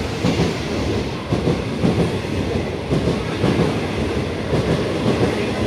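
Passenger coaches of a non-stop express train running past at speed: a steady rumble of wheels on the rails, broken by frequent irregular knocks.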